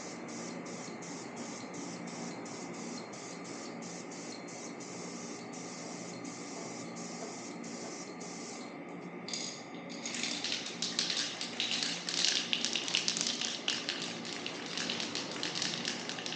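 Spray paint hissing out in short quick bursts, about two a second, then from about ten seconds in a longer, louder continuous spray laying on a thicker coat.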